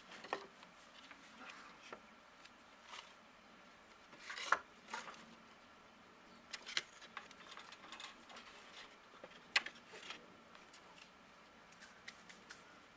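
Dry wooden sticks knocking and rattling against each other as they are pulled from a leaning pile of branches, in irregular sharp clacks, the loudest about four and a half and nine and a half seconds in.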